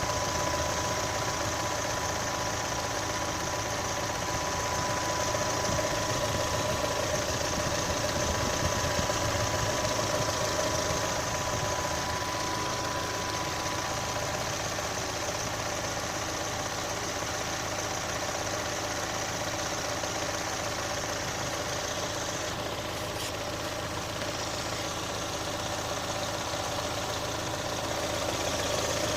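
Chevrolet Onix 1.0 engine idling steadily, with a noise the owner takes for an engine problem. A thin steady whine sits over the running sound and fades out about halfway.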